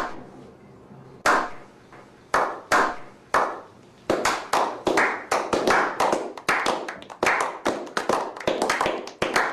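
Slow clap: single hand claps about a second apart that quicken from about four seconds in to several claps a second.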